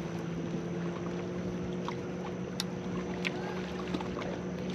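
A steady, low engine hum from a motorboat out on the lake, holding one even pitch. A few small clicks come over it as the fishing rod and reel are handled.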